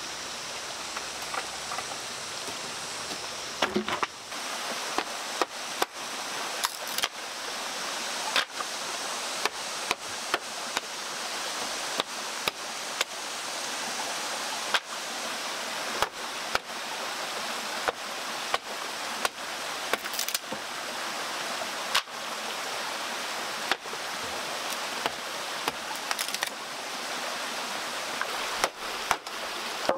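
Steady rush of a rocky mountain stream, with sharp hammer knocks on wood about once a second starting about four seconds in.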